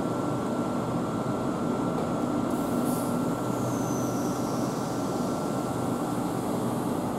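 Class 450 Desiro electric multiple unit standing at the platform, its onboard equipment giving a steady hum with a thin high whine that stops near the end.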